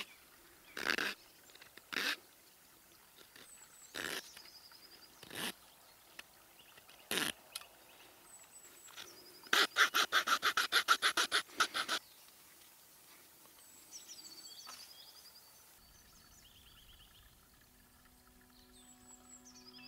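Knife blade cutting into a small wooden peg: single slicing cuts every second or two, then a quick run of about a dozen short strokes around the middle. Birds chirp faintly in between, and soft music comes in near the end.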